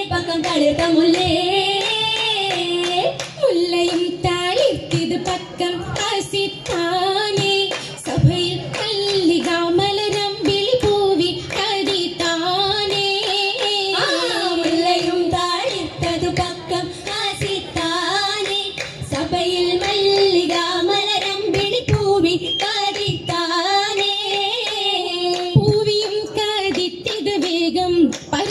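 Oppana: women's voices singing a Mappila song over the dancers' steady rhythmic hand-clapping.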